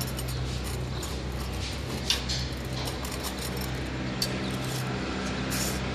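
Wire straightening and cutting machine running with a steady electric hum, with sharp metallic clicks about two seconds in and again about four seconds in, among fainter ticks.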